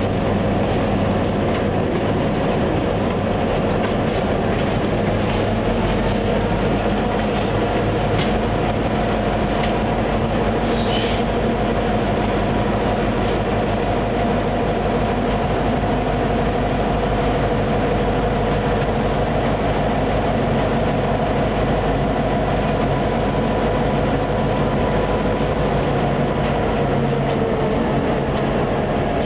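EMD SD50 diesel locomotive running under way, its 16-cylinder two-stroke EMD 645 engine working steadily over the rumble of the train. The engine note steps up about six seconds in and drops back near the end, and a short hiss comes about eleven seconds in.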